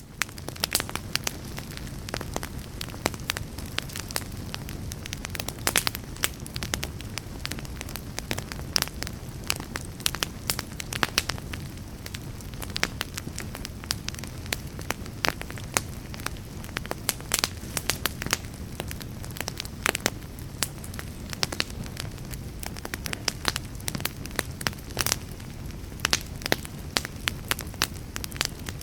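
Wood fire burning in a fireplace: steady crackling, with many sharp irregular pops and snaps over a low rushing of the flames.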